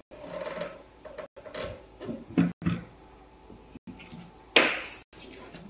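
Scattered handling noises of paper cards on a cloth-covered table: light rustles and a few knocks, with one louder, brief rustle about two-thirds of the way through.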